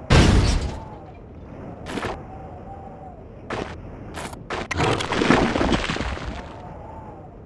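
Engine of a 160cc four-stroke pitbike revving up and down, cut through by several loud, sudden blasts of noise, the longest about five seconds in.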